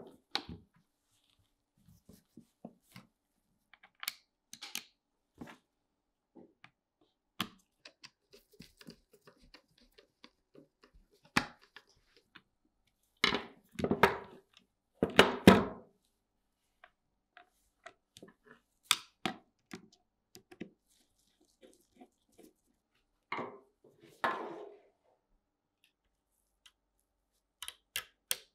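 Gloved hands taking apart an old airgun on a wooden table: scattered clicks and knocks of small metal parts and the wooden stock, with longer rustling and scraping handling sounds about halfway through and again near the end.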